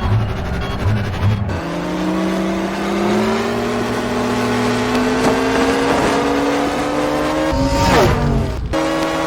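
Sci-fi race car sound effect: a synthetic, engine-like hum that slowly rises in pitch as it accelerates. About eight seconds in, a car sweeps past fast with a sharp rise and fall in pitch. The sound then cuts abruptly to another steady hum.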